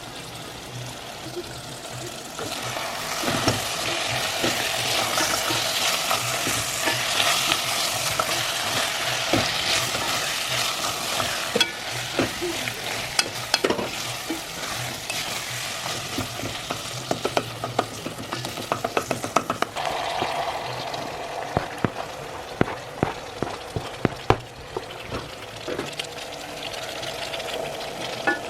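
Minced meat sizzling as it fries in a pot, getting louder about two seconds in, while a spoon stirs it, clicking and scraping against the pot with strokes that come thicker in the second half.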